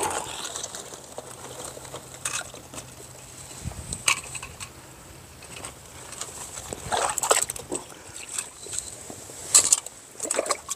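Scattered light knocks, scuffs and small splashes of someone picking their way over wet rocks and a shallow tide pool with crab tongs, busier about seven seconds in and again near the end.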